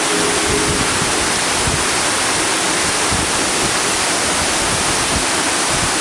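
Small waterfall running steadily down a moss-covered rock face, a constant splashing rush of water.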